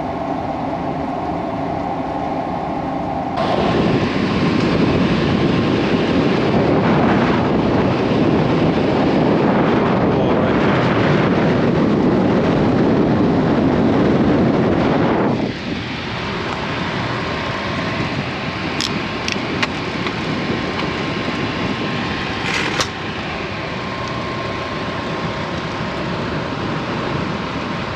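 A commercial air-conditioning system running with a steady mechanical hum. From about three and a half seconds in, a loud, even rush of air from the air handler's blower takes over for about twelve seconds, then the hum returns with a few light clicks.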